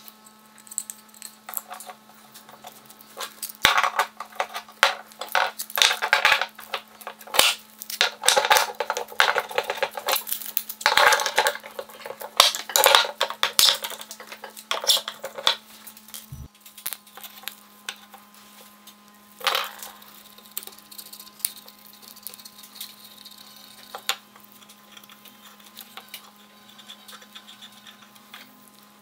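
Metal bar clamps clinking and clacking as they are set and screwed down on a glued-up wooden handle blank: a long run of sharp metallic clicks and rattles. Later it gives way to softer handling and scraping with one short clatter.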